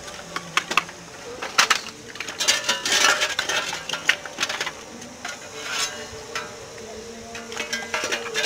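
Clinks, knocks and gritty scrapes of a metal shovel and hot stones being handled while a pachamanca earth oven is layered, busiest in the middle of the stretch.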